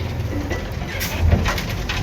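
Heavy earthmoving machinery running at a low, steady rumble, with several short clanks and rattles about a second in and near the end.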